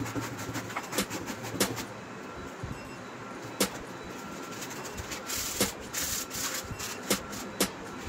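Hand sanding: a blade scraped across a sheet of sandpaper, then folded sandpaper rubbed back and forth over a thin disc, with a few sharp clicks along the way. The rubbing grows louder and hissier about five seconds in.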